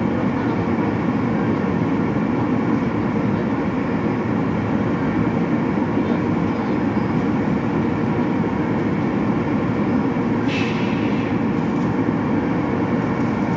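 Steady rumbling noise of running machinery, unchanging throughout, with a brief higher hiss about ten and a half seconds in.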